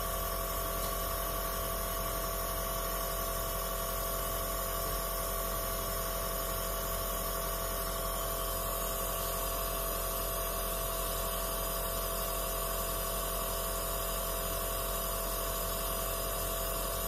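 Compressor nebulizer running, a steady mechanical hum that holds one even pitch, driving air through the tube to the mask's medication cup.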